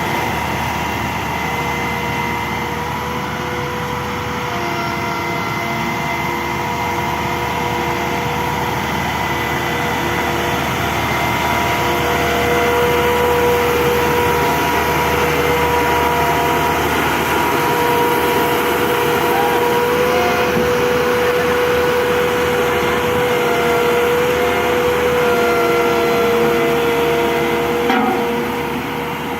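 JCB road roller hydraulic pump running under test, a steady machine noise with a steady whine that grows somewhat louder partway through.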